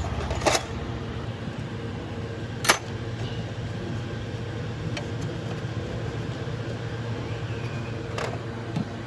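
Steady low mechanical hum with a fainter steady higher tone, broken by three sharp clicks, the loudest about three seconds in.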